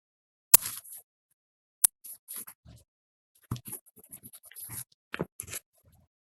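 Sparse small clicks and short scratchy handling noises close to the microphone: two sharp clicks in the first two seconds, then a loose run of brief scrapes and rustles.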